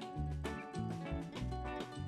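Background music with a bouncing bass line of short notes and a steady beat.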